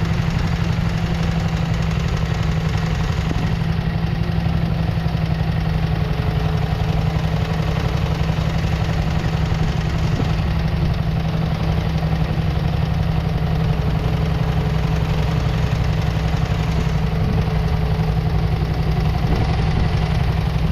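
Single-cylinder 600 cc JAP petrol engine of a 1941 Trusty pedestrian plough tractor, running steadily at an even speed.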